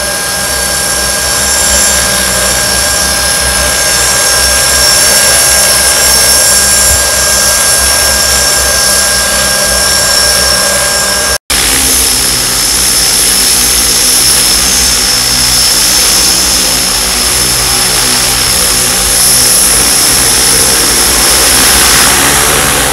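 Large multirotor crop-spraying drone flying and spraying, its propellers making a loud, steady drone with a high whine. The sound cuts out for an instant about halfway through.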